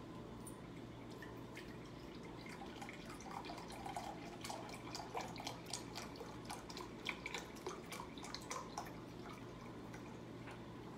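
Chicken broth poured from a carton into a glass measuring cup, a faint trickle with small splashes and drips that starts about three seconds in and tails off near the end.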